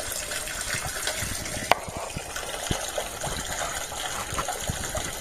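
Steady rush of running water, with one sharp click about 1.7 seconds in.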